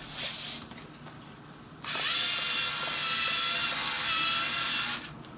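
A small electric motor in a homemade LEGO Mindstorms robot vacuum cleaner starts up about two seconds in, runs with a steady high whine over a rushing hiss for about three seconds, then cuts off.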